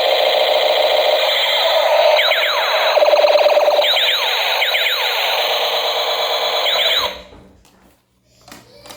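Electronic toy gun sound effect: a loud buzzing tone with repeated falling, laser-like sweeps, cutting off suddenly about seven seconds in, followed by a few light knocks.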